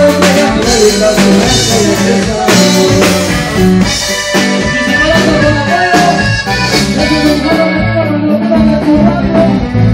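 Live norteño band playing an instrumental passage with no vocals: accordion melody over electric bass and drum kit, loud.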